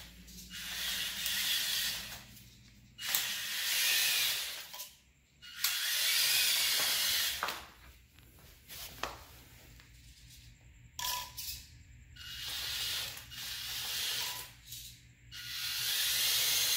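Drivetrain of a homemade WPL-based 8x8 RC truck whirring in repeated bursts of throttle, about six runs of a second or two each, with a few sharp clicks among them. Its two small electric motors are driving together. The clicking is typical of the rear axle, which is cracking on used parts.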